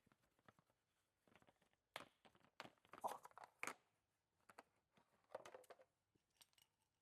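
Near silence with a few faint, scattered clicks and rustles of hands and tools being handled, clustered about two to four seconds in and again near five and a half seconds.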